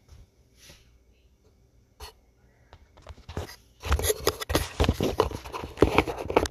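Handling noise of a phone: a few faint taps, then from about four seconds in, loud rapid rubbing and scraping of fingers over the phone's microphone as it is picked up.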